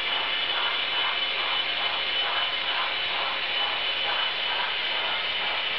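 HO-scale model freight train rolling past on the track: a steady whirring with a high whine, and a faint rhythmic clicking about two to three times a second.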